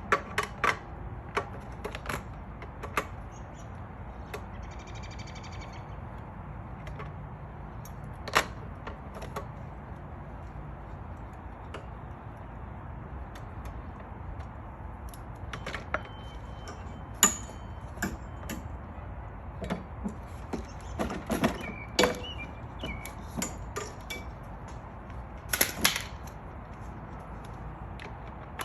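Irregular clicks, knocks and clinks of hand work on lawn mower parts, a few of them sharp, over a steady low background hum.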